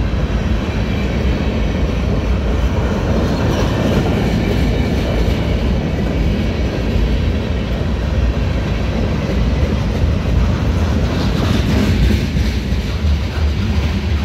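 Freight cars of a CSX mixed freight rolling past close by: centerbeam flatcars, empty and lumber-loaded. The steel wheels on the rails make a steady, loud, low rumble.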